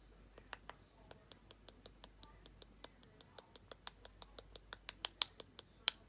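Green-cheeked conure making a rapid series of soft clicks with its beak and tongue, about five a second, getting louder toward the end.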